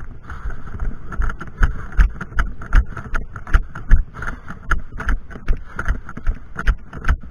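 A player running, heard from a body-worn camera: quick footfalls over pavement and then dry grass and leaves, about two to three thumps a second, with gear jostling against the mount.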